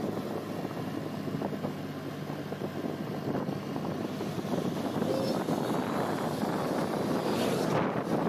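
Steady engine and road noise of a vehicle driving along a road, growing a little louder after the middle, with another vehicle rushing past near the end.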